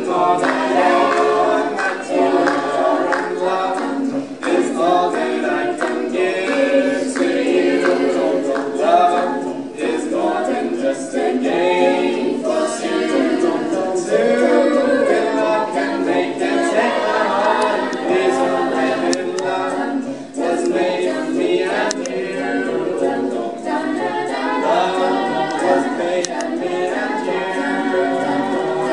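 A mixed group of male and female voices singing together in harmony, unaccompanied (a cappella).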